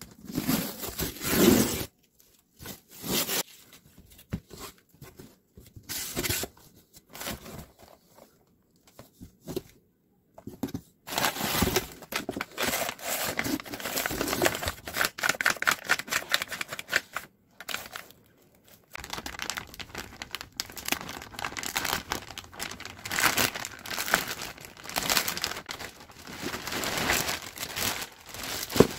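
Unboxing a taped cardboard delivery box: packing tape tearing, cardboard rustling and plastic food packaging crinkling. The bursts come in irregular short scrapes and rips, sparse at first and almost continuous in the second half.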